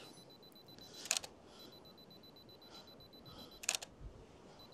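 Camera shutter firing twice, about two and a half seconds apart, as an intervalometer takes time-lapse frames. A faint high beeping tone sounds between the shots.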